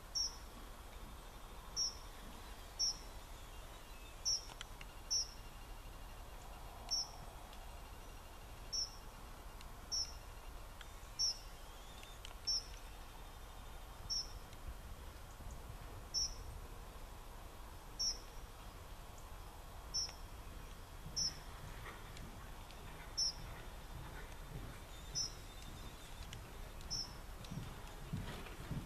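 A short, high-pitched chirp repeats every second or two at a steady pitch over a quiet background. Near the end come soft thuds of horse hooves on the sand footing of the arena.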